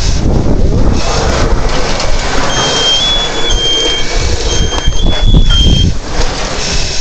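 A loud, steady rushing noise, with a run of high electronic beeps from a few seconds in that step between two close pitches in tones of uneven length.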